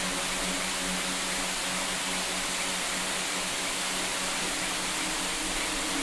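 Waterfall pouring into a rock pool: a steady, even rush of falling water.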